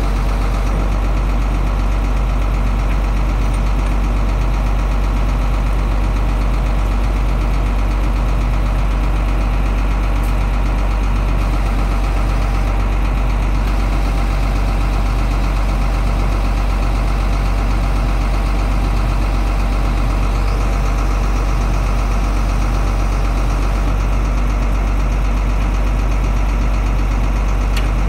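1995 GMC TopKick wrecker truck's engine idling steadily while its boom controls are worked.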